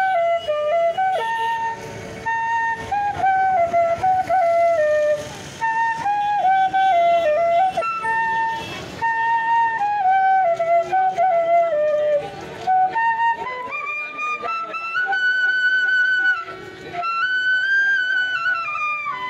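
Bamboo flute (bahi) playing a Rabha Sangeet melody solo into a microphone, in phrases broken by short breaths. The tune moves by steps and slides, and about two-thirds of the way through it climbs into a higher register and holds longer notes.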